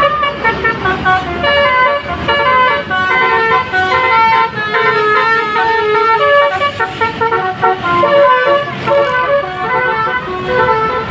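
Indonesian bus 'telolet' horn: a bank of musical air horns playing a quick tune of short notes that step up and down in pitch.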